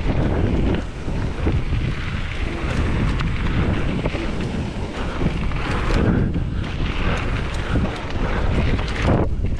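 Wind buffeting the microphone, a dense rushing noise with a heavy low rumble throughout.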